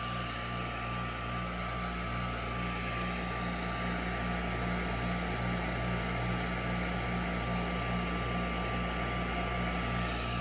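Powered piston ring end-gap grinder running steadily: a low motor hum with a regular throb and a thin steady whine, while a ring's end gap is ground down to size.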